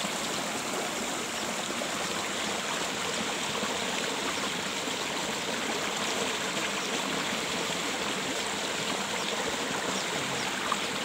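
Small mountain stream running steadily over and between boulders, a continuous rushing of water.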